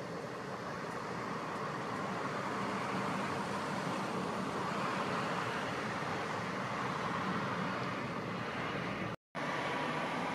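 Steady city street traffic noise, a continuous wash of passing cars, broken for an instant about nine seconds in.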